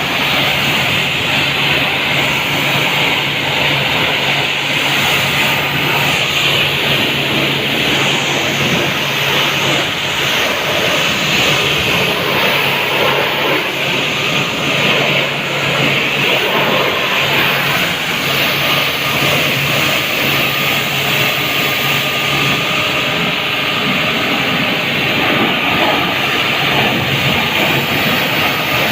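High-pressure washer running steadily, its water jet hissing as it blasts degreaser off a car's engine bay, with a steady low motor hum underneath.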